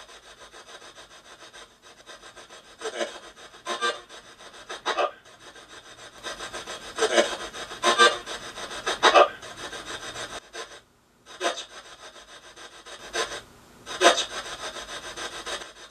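Steady hiss of static broken by short, louder crackling bursts at uneven intervals, dropping out briefly about two-thirds of the way through.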